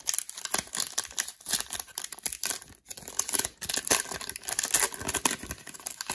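Plastic wrapper of a trading-card cello pack crinkling and tearing as hands pull it open: a dense run of irregular crackles, with one brief pause near the middle.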